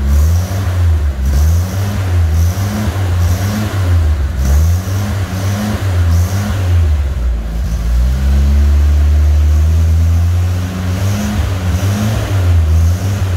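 Ford F100 pickup engine being revved with a garage full of repeated quick throttle blips, a little under two a second. About eight seconds in it holds one longer, steadier rev for a couple of seconds, then goes back to short blips.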